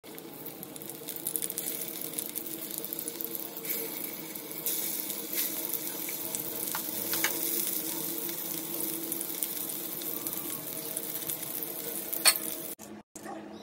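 Stuffed bitter gourds sizzling as they fry in hot oil in a pan: a steady hiss with a few sharp clicks, the loudest near the end, then a short break in the sound.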